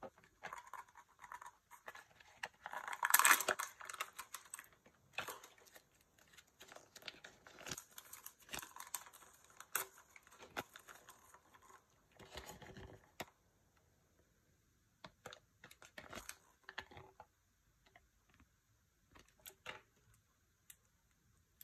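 Thin plastic wrapping of a Kinder Joy egg and its small toy bag being torn open and crinkled by hand. The loudest tearing comes about three seconds in. From about two-thirds of the way through there are only sparse small clicks of plastic pieces being handled.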